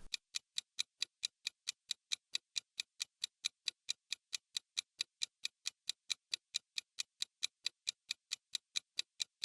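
Clock-ticking sound effect used as a quiz countdown timer, an even, steady run of about four crisp ticks a second.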